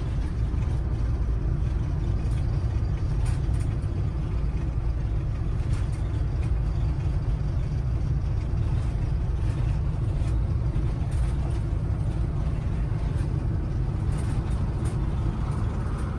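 Steady low rumble with no distinct events, like road or engine noise from a moving vehicle or wind on the microphone.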